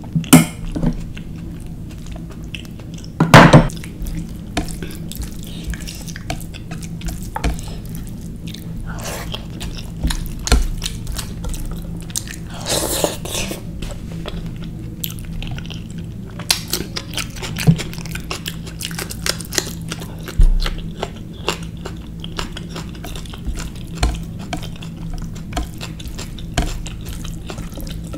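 Close-miked eating of rice, curry and naan by hand: chewing and mouth sounds with frequent clinks of a spoon and fingers against bowls and plates, and a few louder knocks. A steady low hum runs underneath.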